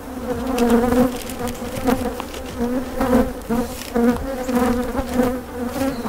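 Many honeybees flying around an opened hive, a steady buzzing hum whose pitch wavers slightly as bees pass near and away.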